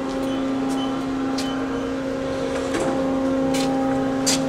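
A steady machine hum holding one pitch with overtones, stepping slightly in pitch about three seconds in, with a few light clicks and knocks over it.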